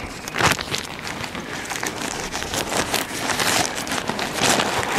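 A thin white bag crinkling and rustling as it is handled and packed, a dense run of irregular crackles.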